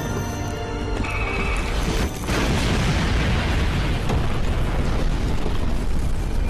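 Soundtrack music over a heavy, rumbling explosion sound effect; the rumble dips briefly about two seconds in, then carries on.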